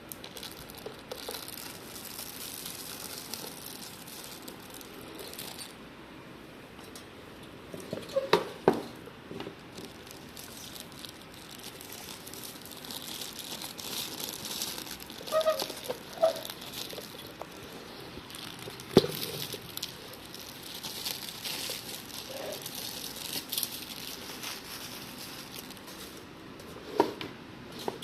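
Plastic and paper packaging being handled: crinkling and rustling on and off, with a few sharp knocks and taps.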